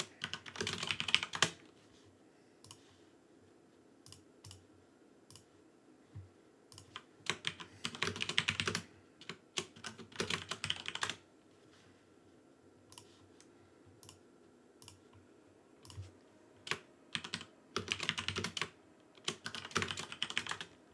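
Typing on a computer keyboard: several quick runs of keystrokes with single taps in between.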